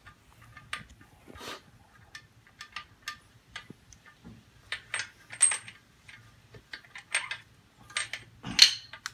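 Metal engine parts of a Porsche 1600 Super flat-four clinking and tapping as they are handled during teardown: a scattered run of short, light strikes, with the loudest clank near the end.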